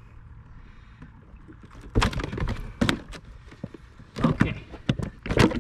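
A hooked fish splashing and thrashing at the side of the boat as it is landed, with knocks from about two seconds in.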